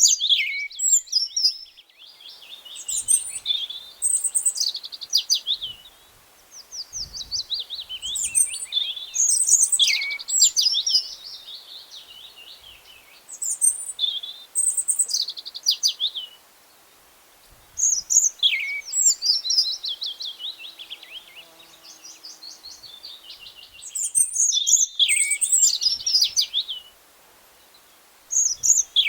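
Songbirds singing: phrases of fast, high chirps and trills that slide down in pitch, each a few seconds long and repeated with short pauses between them.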